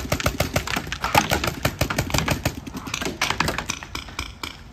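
Paintball markers firing a rapid run of sharp shots, roughly eight to ten a second.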